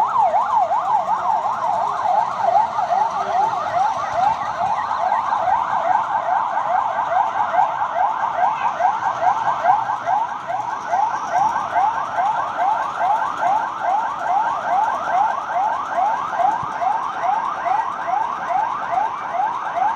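Electronic alarm siren sounding for an earthquake drill: a loud, fast warble sweeping up and down in pitch several times a second, without a break.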